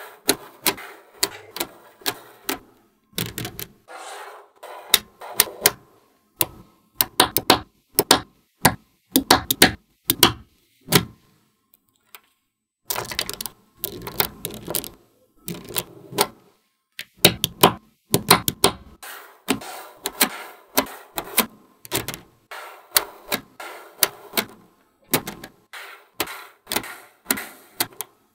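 Small magnetic balls clicking and snapping together as they are fitted into a model. The clicks come sharp and irregular in quick clusters, with a short pause about halfway through.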